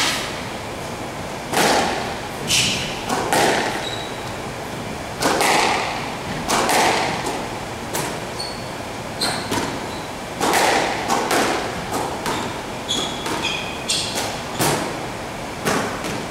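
Squash rally: a rubber squash ball struck by rackets and smacking off the court walls, sharp hits coming irregularly about once a second, with short high squeaks from shoes on the wooden floor.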